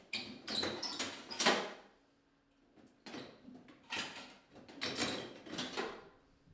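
Fluorescent tubes and the metal fixture being handled as the tubes are twisted out of their sockets: short scraping and clattering sounds in two bursts, the first in the opening two seconds and the second from about three seconds to six.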